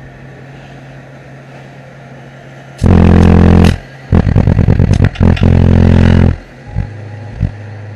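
Bass-heavy music pounding from a car's Skar Audio VD-12 subwoofers, heard inside the cabin. Quieter for the first few seconds, then very loud deep bass hits come in about three seconds in and again from about four to six seconds, overloading the microphone.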